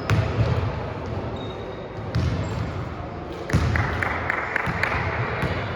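Basketball bouncing on a gym floor during play, a run of low thuds and sharp impacts. A louder, noisier stretch of game sound starts about three and a half seconds in.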